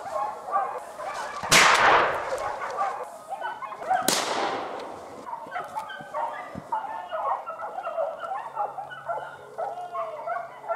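Two .410 shotgun shots, about a second and a half and four seconds in, each with a long echoing tail, over hunting hounds yelping and baying throughout.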